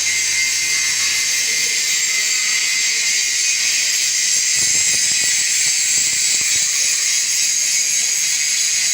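Arc welding: the welding arc giving a steady, high frying hiss.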